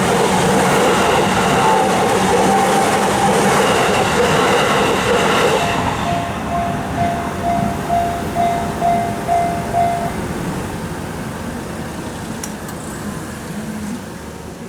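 A train passes over a Japanese level crossing, its noise dropping away about six seconds in. The crossing's warning bell goes on ringing a steady ding-ding about twice a second, stops about ten seconds in, and leaves quieter traffic noise.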